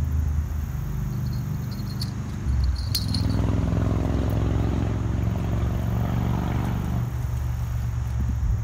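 An engine running steadily with a low hum that grows fuller from about three seconds in and eases off near the end. Over it, about one to three seconds in, come quick runs of light clicks from a fishing reel, with a couple of sharper clicks.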